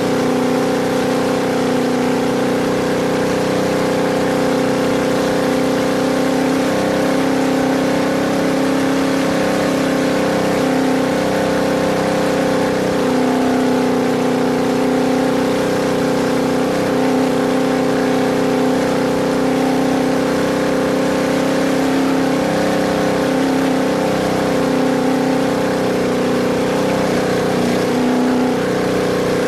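Off-road race vehicle's engine running at steady, high revs with a constant drone, heard from on board at speed, with road and wind noise beneath it.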